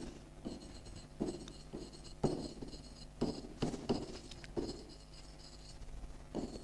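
Stylus tapping and scratching on the glass screen of an interactive display as words are handwritten, in short separate strokes about one or two a second, over a faint steady hum.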